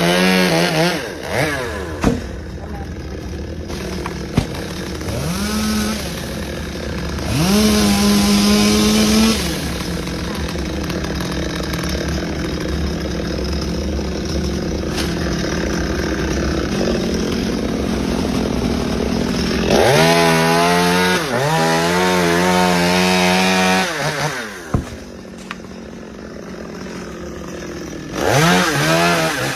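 Two-stroke chainsaw running, its throttle opened several times so that the engine revs up sharply and holds high, then drops back to a lower, steadier running speed. The longest high rev comes about twenty seconds in, and another starts near the end.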